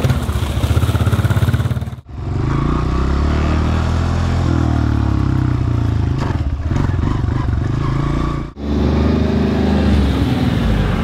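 Small dirt bike engine running and revving as it is ridden, in clips cut together about 2 s and 8.5 s in; near the end, a side-by-side utility vehicle's engine running as it drives.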